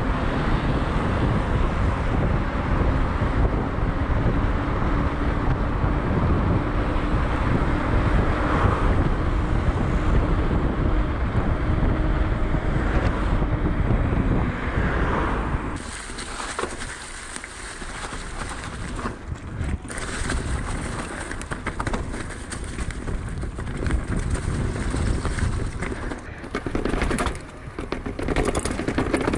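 Riding a Rockrider 560 S mountain bike: wind buffets the microphone over rolling tyre noise, with a faint steady hum through the first half. About halfway through the sound abruptly turns quieter and thinner, with scattered clicks and rattles from the bike.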